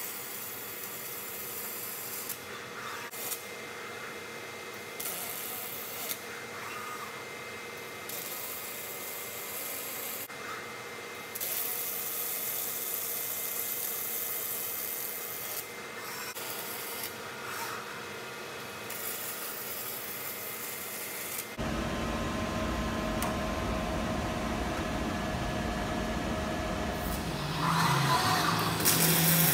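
Robotic MIG welding arc hissing and crackling in stretches of a few seconds, stopping and restarting as the torch moves between welds, over the hum of the welding cell. Roughly two-thirds of the way in the sound changes abruptly to a steadier, lower machine hum with no arc.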